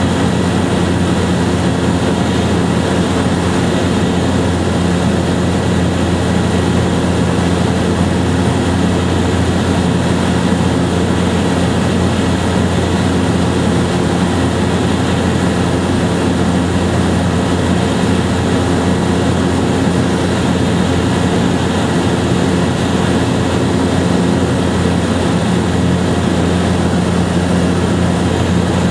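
A steady engine drone with several fixed tones over a constant hiss, unchanging throughout.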